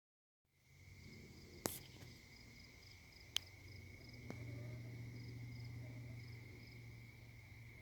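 Night insects: crickets trilling in a steady high tone, with another insect chirping in short quick pulses above it, over a low steady hum. Two sharp clicks come about a second and a half in and again near three and a half seconds.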